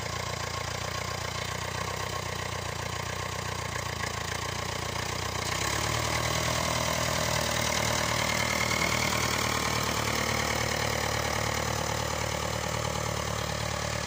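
The four-cylinder diesel engine of a 1950s Nuffield Universal 4 tractor running as the tractor drives across grass. About five seconds in its note shifts and it gets a little louder.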